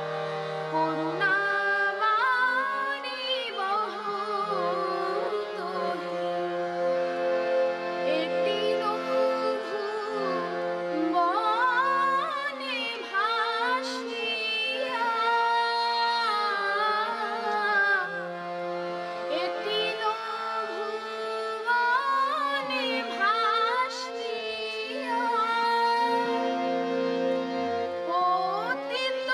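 A boy singing a Bengali padavali kirtan with sliding, ornamented phrases, accompanied by a harmonium holding sustained notes beneath his voice.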